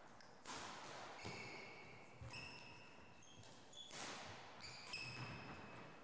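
Badminton players' court shoes squeaking on a wooden sports-hall floor, several short squeaks mixed with a few sharp knocks of footfalls or shuttlecock strikes, echoing in the hall.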